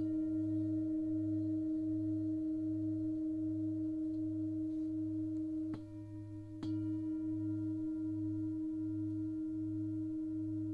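Heavy, thick-walled 12-inch green Tara singing bowl ringing after a strike from an Olli Hess moveline mallet with a soft fleece head: a steady hum with a slow, even throb in the low tone. About six seconds in there are two sharp knocks, the ring dipping between them and coming back full after the second.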